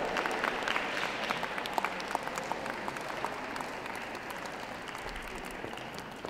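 Audience applauding, a dense patter of clapping that gradually dies away.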